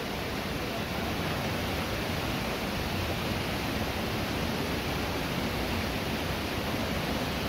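Steady roar of rushing water from the Misol-Ha waterfall, an even, unbroken rush.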